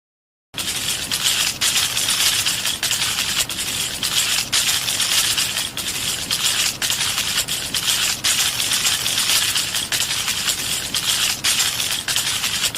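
Film sound effect: a harsh, crackling hiss that starts abruptly about half a second in and runs on at an uneven level.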